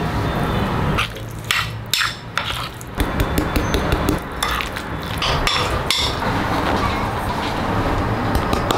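A spoon clinking and scraping against a ceramic mixing bowl in short clusters of taps as seasoning and starch are added to a filling, over a steady low background rumble.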